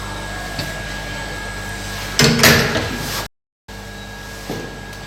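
Hot air rework station running with a steady hum, with a louder, noisier burst of about a second near the middle before the sound cuts out briefly.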